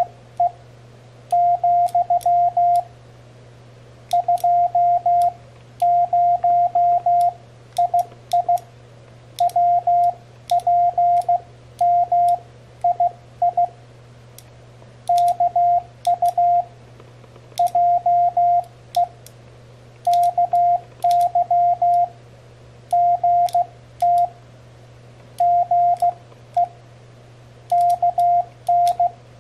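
Morse code sent by hand on a homemade CW paddle key built from two microswitches: a single steady beep tone keyed on and off in short groups of dots and dashes, with pauses between characters. Sharp clicks of the microswitches come as the paddles are pressed.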